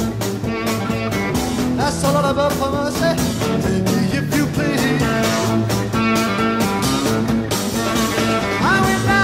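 Recorded rock music: a full band with electric guitar, bass and drums playing steadily.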